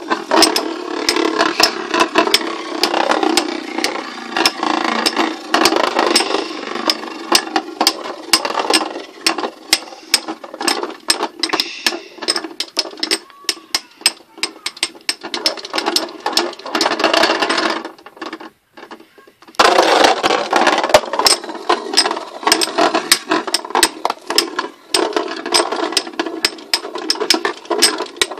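Two Beyblade spinning tops whirring in a plastic stadium, with rapid sharp clicks and clacks as they knock into each other and the stadium walls. About two-thirds of the way through the sound drops almost to nothing for a second or two, then the whirring and clattering start again.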